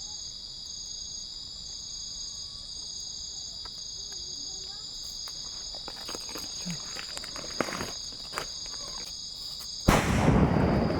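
Steady chorus of night crickets and insects, with a few small clicks, then about ten seconds in a single sudden loud firecracker bang that rumbles away over a second or more.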